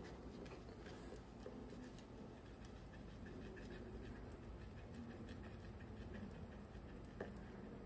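Carving knife cutting into eucalyptus tree bark: faint, repeated scraping and small crackling strokes as the blade works along the outline.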